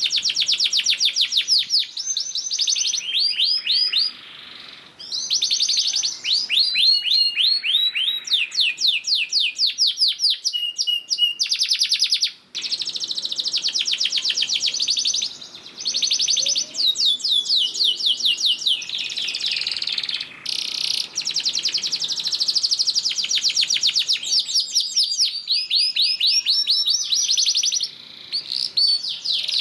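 Canary singing long, fast trills: runs of rapidly repeated sweeping notes, phrase after phrase, with brief pauses between them.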